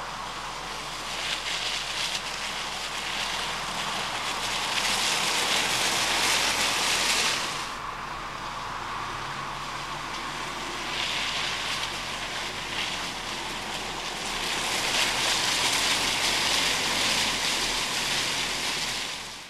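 MINI Cooper S Countryman ALL4 driving slowly over a wet, muddy grass track: mostly a hiss of tyres on wet ground, swelling three times as the car comes closer, over a faint low engine hum.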